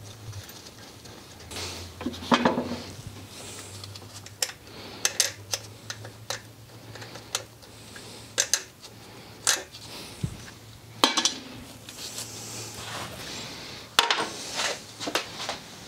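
Metal wrench clinking and tapping against the nuts and fittings at the base of a carburetor: irregular sharp metallic clicks, a few of them louder, with a quick cluster near the end.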